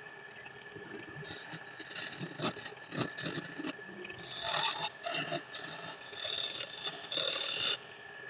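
Hand chisel scraping against a wooden spindle turning on a wood lathe, in several passes of about a second each, with a couple of sharp clicks near the middle. A faint steady whine runs underneath.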